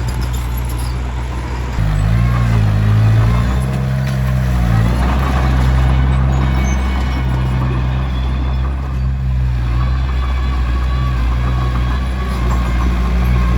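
Komatsu D21P bulldozer's diesel engine running steadily. Its pitch rises and dips for a few seconds about two seconds in as the load changes, then settles.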